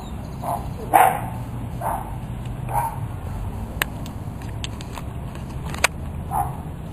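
A dog barking in short separate barks, loudest about a second in, over a steady low rumble of wind. A few sharp clicks come in the second half.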